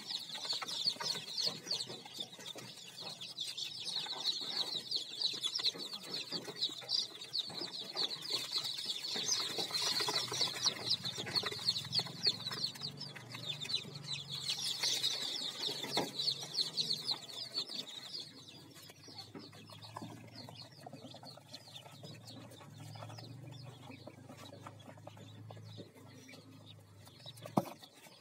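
Dozens of chicks peeping together in a brooder, a dense chorus of short high peeps that thins and fades after about eighteen seconds. A faint low hum runs under the second half, and a single click comes near the end.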